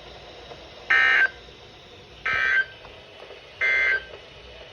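Emergency Alert System end-of-message data tones from NOAA Weather Radio: three short, identical warbling digital bursts, each a fraction of a second long and about a second apart, marking the end of the alert.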